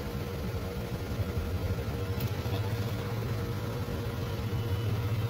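A steady low motor hum with a faint constant tone above it.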